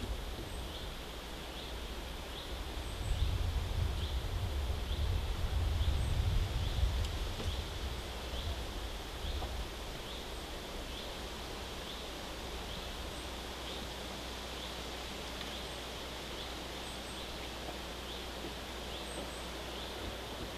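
A small bird repeating a short high call about once every two-thirds of a second over a steady outdoor hiss. A low rumble swells about two seconds in and dies away by about ten seconds in.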